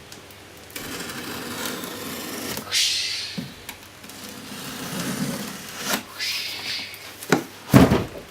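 Cardboard box being handled and opened: scraping and rubbing, a high rushing tear about three seconds in, and a few sharp knocks near the end, the last one the loudest.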